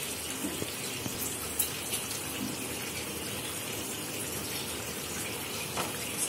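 A steady rushing hiss with a few faint clicks and light knocks.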